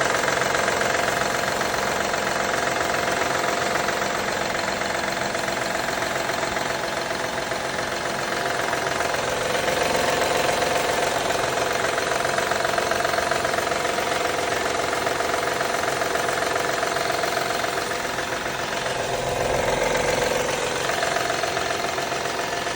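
2014 Honda Odyssey's 3.5-litre J35Z8 V6 running cold with a steady knock. The knock appears when the engine is cold, and the owner does not know its cause.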